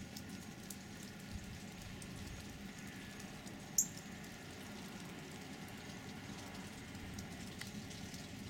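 Faint, steady outdoor background noise with scattered soft ticks, and one brief, sharp high-pitched sound about four seconds in.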